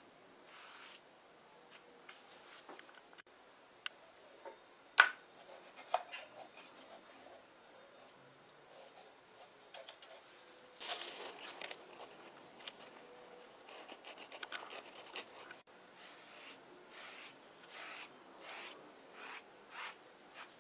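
A small pad rubbing paint onto leather in short scratchy strokes, which become a steady back-and-forth of roughly one stroke a second near the end. A couple of sharp clicks about five seconds in, and some clattering handling of paint jars about halfway through.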